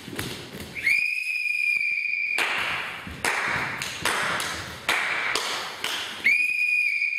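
A whistle blown in two long, steady, high-pitched blasts, one about a second in and another near the end. Between the blasts comes a run of short hissing bursts.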